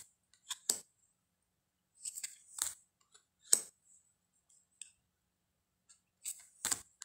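Tarot cards being handled during a flip-through: short, sharp card snaps and slides, a handful spread irregularly every second or two.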